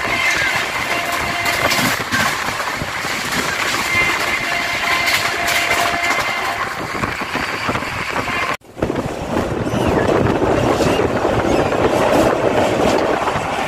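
Express train running at speed, heard from an open coach doorway: a steady rush of wind and wheel-on-rail rumble with scattered sharp clicks over rail joints. The sound cuts out for a moment about two-thirds of the way through and comes back louder.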